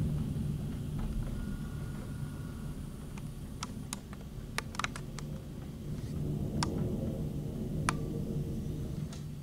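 Steady low rumble of a heavy thunderstorm downpour with gusty wind. Scattered sharp clicks come through the middle and latter part.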